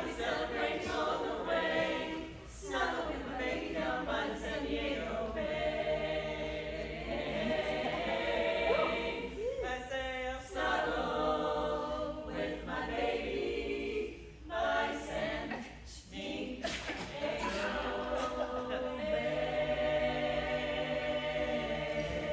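Women's barbershop double quartet, eight voices, singing a cappella in close harmony: sustained chords with short breaks between phrases.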